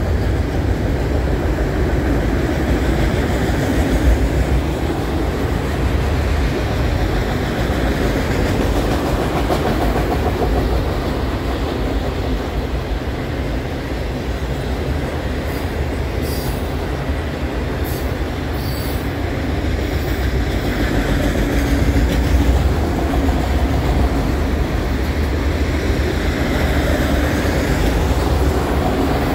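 Freight train of autorack cars rolling past at speed: a steady rumble of steel wheels on rail. A few brief high squeaks come about halfway through.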